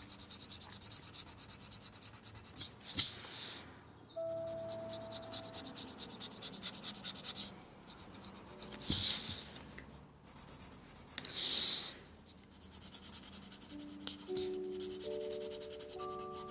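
Marker nib scratching back and forth over smooth paper in quick, short strokes, with a few louder scrapes. Faint background music notes come in near the end.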